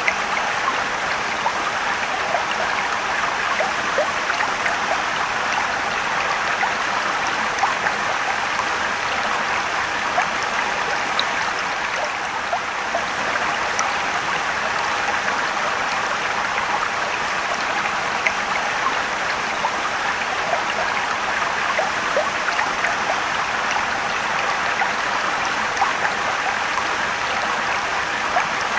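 Mountain stream rushing and trickling over rocks, a steady even wash of water with small splashes scattered through it.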